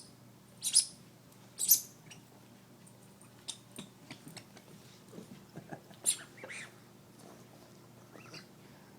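French bulldog puppy playing with a ball: a few short, scratchy noises, the loudest about a second in, a second later and about six seconds in, with lighter taps and rustles between.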